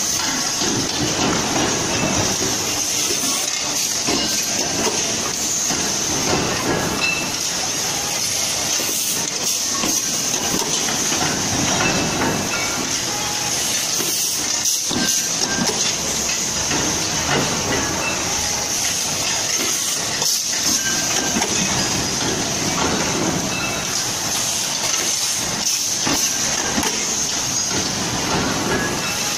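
Machinery din of an automated pressure cooker production line, with punch presses, robotic transfer arms and conveyors running together: a steady high hiss over a dense mechanical clatter with scattered knocks.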